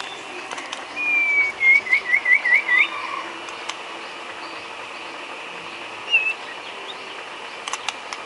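White-rumped shama (murai batu) singing: a long whistle that falls slightly, then a quick run of five upturned notes, and a single short note a few seconds later.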